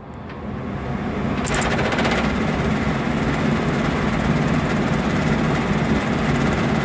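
1980s furnace blower motor starting up and running, spinning up over the first second or so to a loud, steady rattle from the blower assembly. The rattle is lessened by hole-strap bracing but still there, in a blower that is coming apart with a cracked bracket.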